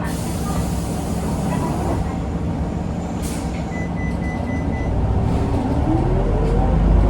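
Inside the cabin of an Isuzu Erga city bus, its diesel engine idles under a burst of compressed-air hiss lasting about two seconds. A shorter hiss follows about 3 s in, and a steady beep sounds for about a second. From about five seconds in, the engine note climbs in pitch and grows louder as the bus pulls away under hard acceleration.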